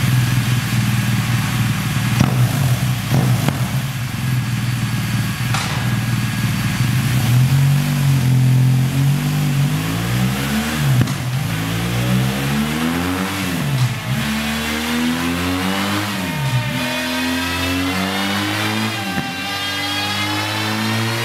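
BMW R1200 GS boxer-twin engine running through a Zard carbon slip-on silencer with its dB killer removed, the rear wheel spinning on a dyno. It holds a steady low note at first, then from about seven seconds in the revs climb and fall again and again.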